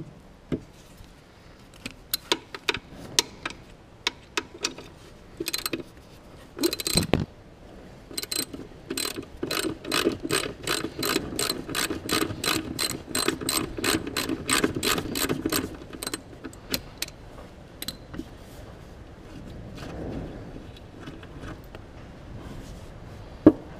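Ratchet spanner clicking as bolts are undone on a mini excavator's guard: a few scattered clicks, then a quick, even run of clicks, about four a second, for several seconds through the middle. Quieter handling sounds follow, and there is one sharp metal knock near the end.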